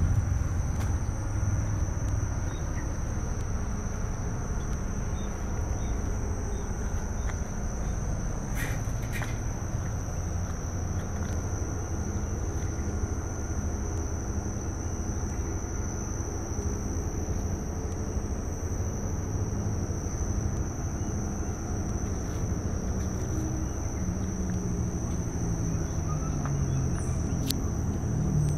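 A steady high-pitched insect drone over a low rumble, with a couple of brief clicks about nine seconds in.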